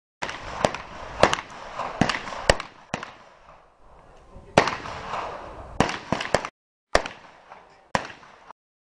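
Submachine guns firing single shots on an outdoor firing line: about ten sharp cracks at irregular spacing, from more than one shooter, with a background murmur between them.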